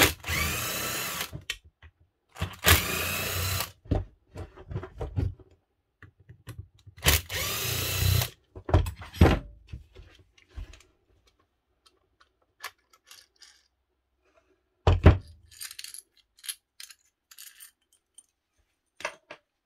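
A power drill-driver backing screws out of a drill's gear housing: three short runs of about a second each, each starting with a rising whine. Later a single knock and light clinks of loose screws being handled.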